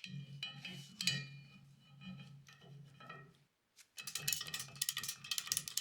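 Metal clinking and ringing as the ratchet strap's hooks and buckle are set against the steel chassis, then about four seconds in the fast clicking of the ratchet strap being cranked tight.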